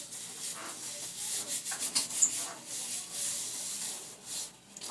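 Gloved hands rubbing and scrubbing hair: an uneven, scratchy rubbing made of many short irregular strokes.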